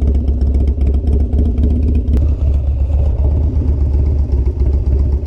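2003 Harley-Davidson Dyna's V-twin engine running steadily, with a heavy, continuous low rumble.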